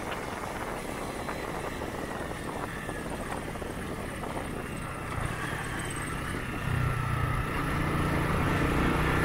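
A Honda CG Titan 125's single-cylinder four-stroke engine running while the motorcycle is ridden over dirt road. The engine note comes through louder from about five seconds in and again near seven seconds.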